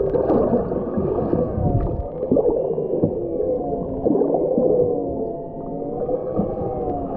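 Underwater sound picked up by a camera housing on a fishing line: a low rush of water with a few knocks, under a set of several tones that glide slowly up and down together.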